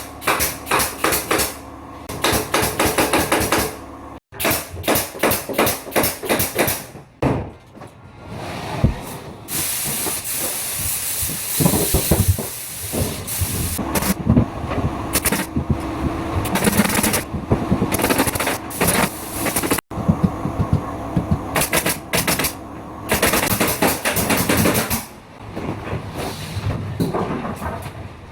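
Interior carpentry work sounds: fast runs of sharp clicks and knocks, with a stretch of hissing noise about ten seconds in. The sound cuts abruptly twice.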